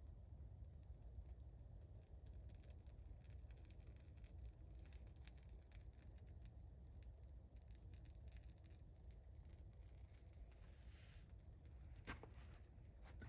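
Near silence with faint crackling from a piece of bark burning as it catches. About twelve seconds in there is a soft rustle and click as the burning bark is set down into the fire pit.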